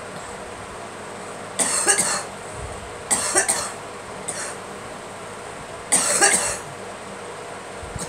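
A woman coughing in three bouts of a few coughs each, spread over several seconds, with one faint single cough between the second and third bouts.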